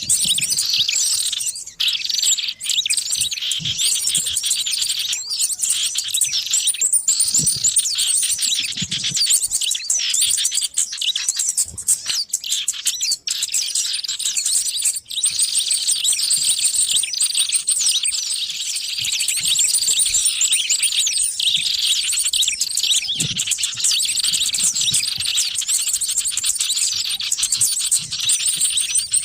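A dense, continuous chorus of many small birds chirping and twittering rapidly, without pause: a small-bird lure (pikat) recording meant to draw in wild birds.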